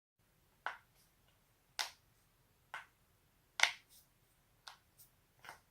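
Joints cracking: a series of about eight sharp pops at irregular intervals, the loudest about halfway through.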